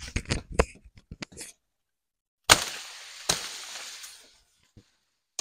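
Dry sugarcane stalks and leaves cracking and snapping as cane is cut and broken: a quick run of sharp cracks, then a loud crack about two and a half seconds in that trails into dry rustling, with another crack soon after.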